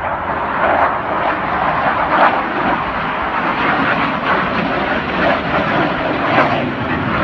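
MiG-29UB jet fighter's twin turbofan engines passing overhead: a steady, rushing jet noise with uneven surges in level.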